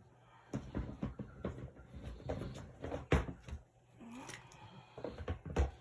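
Plastic action figures being handled and moved about: an irregular string of light clicks and knocks, the loudest about three seconds in.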